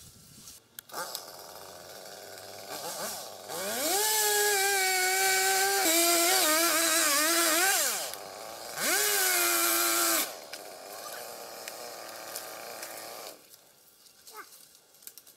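Chainsaw revving up to full throttle and cutting through a pine limb, its pitch dipping slightly under load, for about four seconds. It drops back, revs high again for about a second, then runs at idle for a few seconds.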